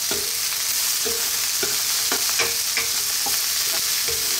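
Diced frozen mixed vegetables and onion sizzling in hot oil in a nonstick wok, while a spatula scrapes and turns them about twice a second.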